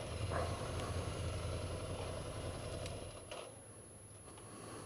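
Motorcycle engine running at a steady idle, its low hum dropping away a little over three seconds in.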